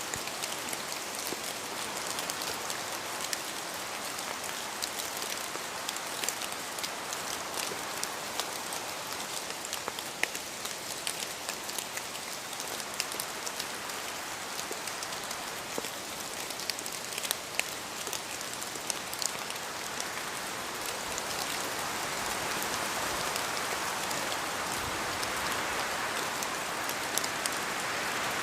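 Steady rain falling, a constant hiss with many individual drops ticking sharply through it; it grows slightly louder over the last few seconds.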